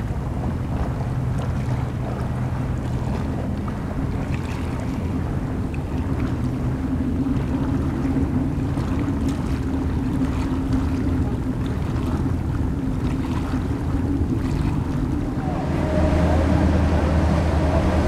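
Steady low hum of an unseen boat engine out on the lagoon, over wind on the microphone and small waves lapping. About sixteen seconds in, it changes to the louder, deeper engine drone of a vaporetto waterbus passing close by.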